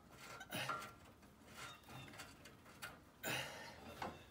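Faint, scattered metallic clicks and scrapes of a bolt being started by hand through a steel winch plate into the truck frame, with a louder scrape about three seconds in.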